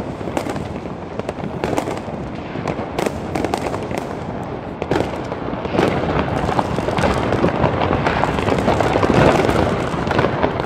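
Many fireworks and firecrackers going off at once in a dense, unbroken crackle of bangs. It grows a little louder about halfway through.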